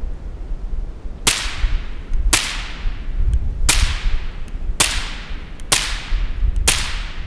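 Six suppressed shots from an FN Five-seveN pistol fitted with a Dead Air Mask suppressor, firing supersonic 5.7x28mm American Eagle rounds about one a second. Each is a sharp crack with a short fading echo, over a low rumble.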